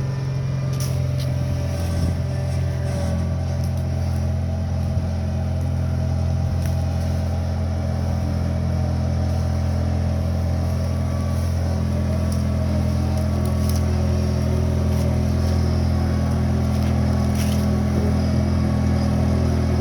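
Skid steer engine running steadily at a constant speed, with a few faint clicks over the top.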